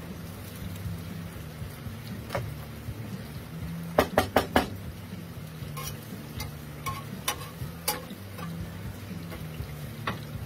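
Metal tongs clicking and scraping on a Blackstone griddle top as broccoli florets are spread out, over a low frying sizzle. There is a quick run of four clicks about four seconds in and scattered single clicks after.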